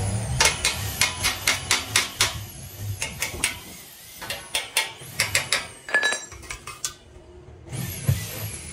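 Hammer tapping on a steel frame, knocking galvanized pipe rungs into the square-tube rail. The sharp metallic taps come in quick runs of about four a second, with short pauses.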